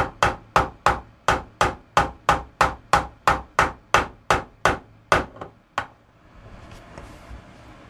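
Brass face of a fret hammer gently tapping a new fret wire down into its slot in a guitar fretboard: about eighteen light, even taps, about three a second, that stop about six seconds in.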